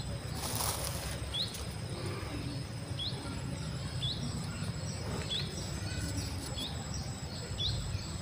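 Steady high-pitched insect trill, cricket-like, with a bird giving short upward chirps about once a second, over a low steady rumble. A brief rustle sounds about half a second in.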